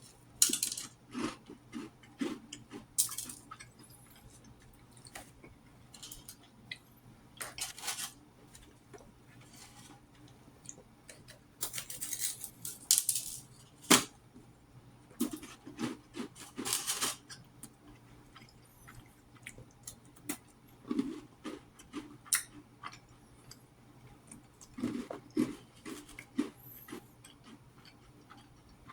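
Close-miked eating: chewing and crunching bread and crackers in short irregular bursts, with scattered clicks and clatter of dishes being handled and one sharp knock about halfway through.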